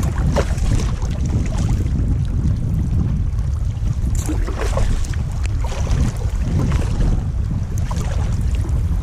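Wind buffeting the microphone in a steady low rumble, with irregular splashes and drips of sea water at the sides of a moving sea kayak.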